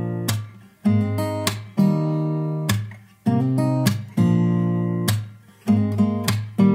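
Background music: an acoustic guitar strumming chords, each struck sharply and left to ring out before the next.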